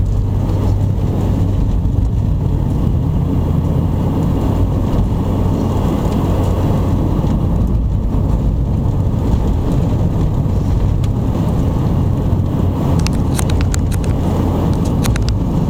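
Steady low rumble of a car's engine and tyres heard from inside the cabin, driving at about 30 mph on a snow-covered road. A few faint ticks come in near the end.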